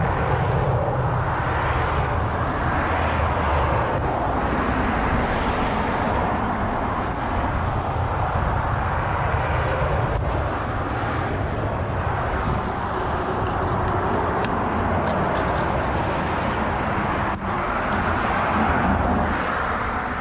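Steady road traffic noise, a continuous rush and rumble of passing vehicles that swells and eases every few seconds, with a few faint clicks.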